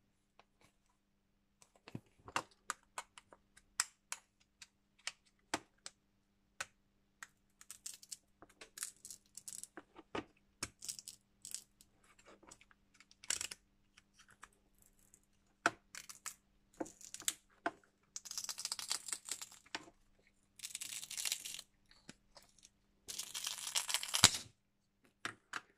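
Utility knife blade prying and scraping a glued plastic disc off the plastic top cover of a wireless charger: many scattered small clicks and cracks as the glue and plastic give way, then three longer scraping strokes near the end.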